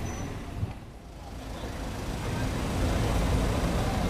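Lamborghini Aventador Roadster's V12 idling through an aftermarket exhaust, a steady low rumble that drops briefly about a second in and then builds back up.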